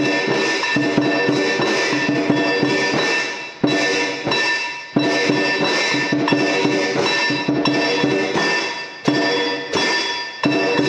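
Music with drums and percussion: ringing tones under a busy run of struck beats, with a few heavy hits that each fade away over a second or so.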